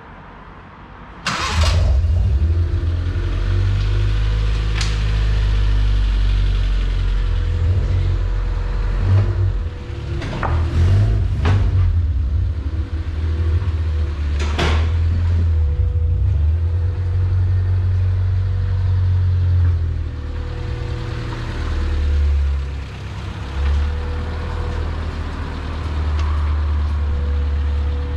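Honda Civic engine starting suddenly about a second in, then idling and running at low speed, its level shifting a little as the car moves off. A few sharp knocks are heard over it.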